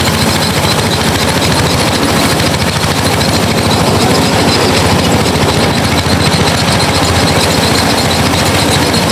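Engine-driven rice threshing machine running steadily, its engine chugging with a fast even pulse.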